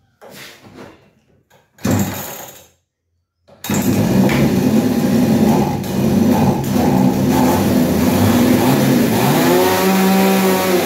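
Chinese 52cc two-stroke chainsaw engine: a pull on the starter about two seconds in, then it starts about a second later and keeps running. Near the end the pitch rises and holds as it is revved up, with the high-speed carburettor screw set at one and a half turns open.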